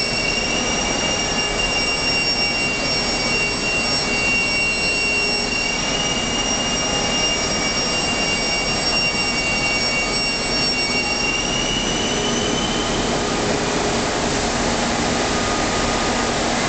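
Steel-pipe polyethylene coating line running: a steady machinery noise with a high, thin whine that rises slightly about twelve seconds in and then fades.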